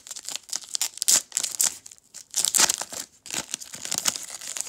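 A Pokémon booster pack's foil wrapper crinkling and tearing as it is torn open by hand, in irregular bursts with brief pauses.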